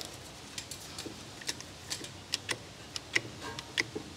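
Light, sharp metallic clicks and taps, irregularly spaced about two to three a second, from a clamp and tools being handled and fitted on a brake caliper.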